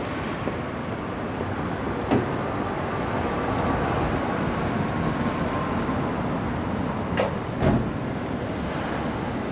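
Steady city street traffic noise, with short sharp knocks about two seconds in and twice close together near the end.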